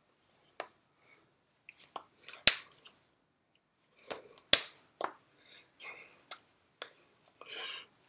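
Hands slapping and tapping against each other and the body during signing, with two sharp, loud slaps about two and a half and four and a half seconds in among scattered softer clicks. Short breathy mouth sounds come and go between them.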